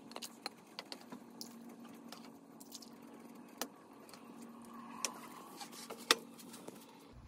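Faint clinks and knocks of a black serving ladle against a wok and a ceramic bowl as soup is served, the sharpest about three and a half and six seconds in, over a steady low hum.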